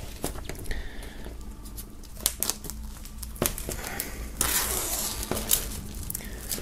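Plastic shrink-wrap film crinkling and crackling as it is peeled off a vinyl LP's cardboard sleeve, in scattered sharp crackles with a longer, denser rustle about four and a half seconds in.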